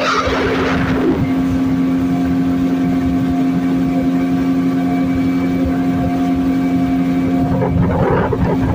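Engine of a wooden longboat under way, running steadily at one speed with an unchanging pitch. A short hiss in the first second.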